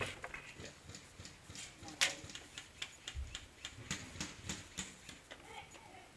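Irregular faint clicks and taps, with one sharper, louder snap about two seconds in.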